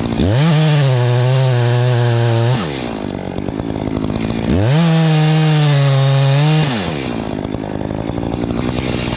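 Echo two-stroke chainsaw idling and twice throttled up to full speed for about two seconds at a time, dropping back to idle after each.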